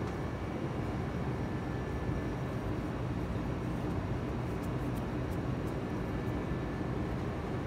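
Steady low mechanical hum and rush of a commercial kitchen's running machinery, with a few faint light ticks in the middle.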